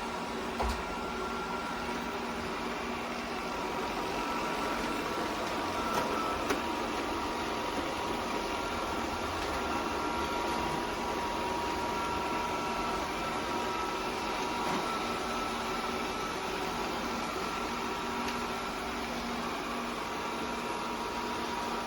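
BPMIO robot vacuum running: an even, steady whir from its suction fan and motors, with a faint steady hum over it.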